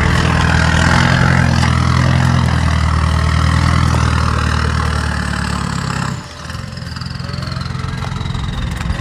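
Off-road 4x4's engine running hard under load, then easing off sharply about six seconds in. After that it runs quieter, with a high whine falling in pitch.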